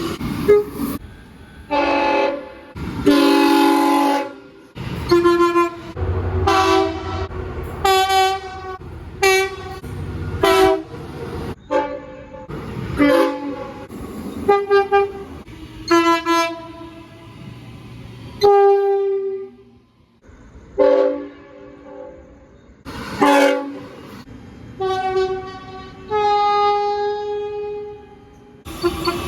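Train horns sounding in a rapid series of short and long blasts, several different horns cut one after another, with low rumble from the trains beneath some of them. Near the end one horn holds a longer steady blast.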